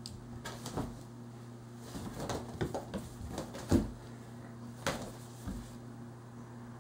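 Rustling and soft thumps of a fabric pop-up cat tunnel being swung while a kitten leaps into it and lands on a wooden floor, with the loudest thump a little before the middle. A steady low hum runs underneath.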